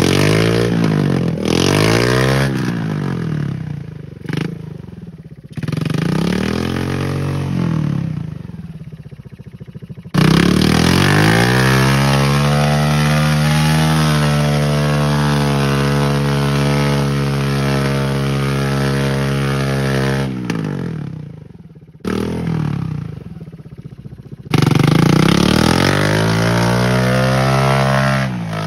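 ATV engine revving up and down in short bursts, then held at high revs for about ten seconds while the rear wheels spin in mud, dropping off and revving again near the end.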